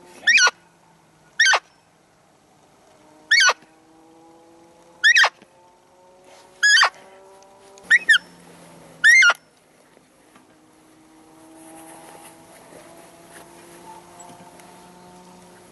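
Roe deer call blown to imitate a doe's squeak during the rut, used to draw a buck in. Eight short, high squeaks about a second or two apart, two in quick succession about eight seconds in, stopping after about nine seconds.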